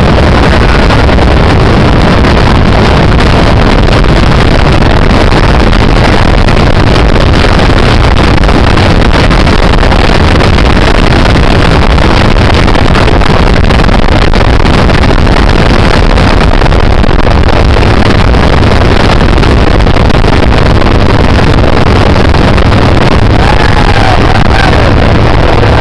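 Helicopter in flight heard from inside a cabin open to the air: loud, steady rotor, engine and wind noise that overloads the microphone, unchanged through a hard bank. Near the end come a few short, high rising-and-falling yells.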